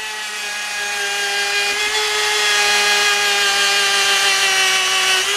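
Handheld rotary tool (Harbor Freight Dremel-type) running at low speed with a small buffing bit pressed against metal. It gives a steady whine whose pitch sags slightly while it grows gradually louder.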